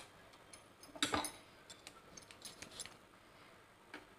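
A cross-scored tomato plopping into a steel pot of hot water about a second in, with faint small taps and clinks around it.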